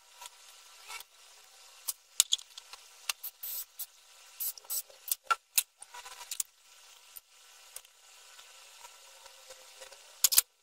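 Scattered light clicks and scrapes of small parts handled on a table: brushless motors being set onto a carbon-fibre quadcopter frame. The loudest is a sharp double click near the end.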